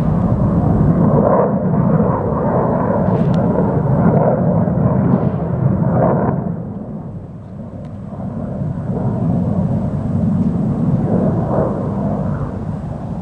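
Aircraft engine noise: a loud, continuous rumble that fades about six seconds in and then builds again.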